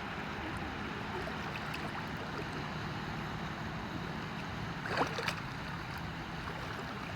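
Steady seaside rush of wind and lapping sea water, with one brief, sharper sound about five seconds in.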